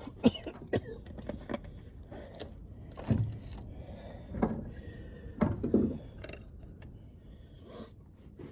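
Metal camp cookware clinking and knocking as it is handled: a string of sharp clicks and clanks with a few duller thuds.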